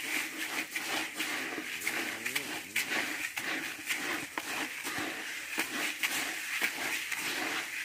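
A hand stirring a plastic bucket of dry bird seed mix (sunflower seeds, millet, cracked maize and other grains). It makes a continuous rustling, crunching shuffle of seeds made up of many small irregular clicks.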